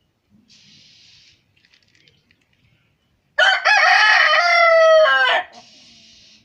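A rooster crowing once, a single long cock-a-doodle-doo of about two seconds starting a little past the middle, its pitch dropping at the end. Faint hissing is heard briefly before and after the crow.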